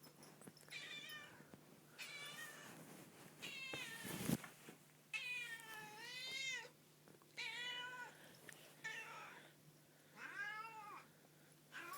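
Domestic cat meowing over and over, about seven separate calls, each rising and falling in pitch: an odd-sounding miaow. A sharp thump about four seconds in.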